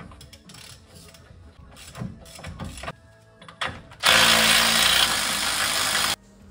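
Cordless impact wrench hammering for about two seconds on a truck's tie rod end nut, stopping abruptly. Before it, a few faint clinks of tools being handled.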